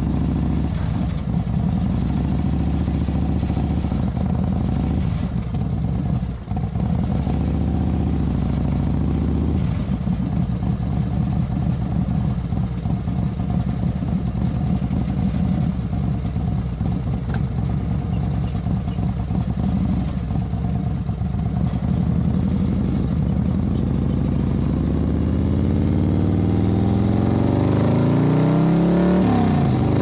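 Motorcycle engine running while riding, a deep steady engine note with a brief dip about six seconds in. Over the last few seconds the note climbs as it speeds up.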